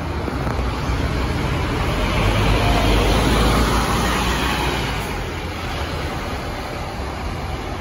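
Scania K230UB city bus's rear-mounted five-cylinder diesel engine pulling away from a stop and passing close by. The sound swells to its loudest about three to four seconds in as the rear of the bus goes past, then eases off as the bus drives away.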